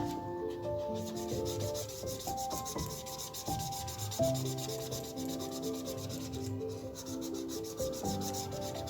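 Felt-tip sketch pen rubbing quickly back and forth on paper while colouring in, in rapid, even strokes. A soft instrumental tune plays underneath.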